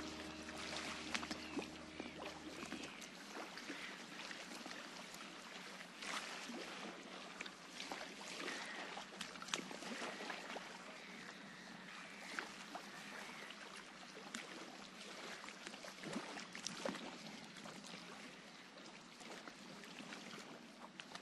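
Faint, steady hiss dotted with scattered crackles and clicks. A held music chord fades out about three seconds in.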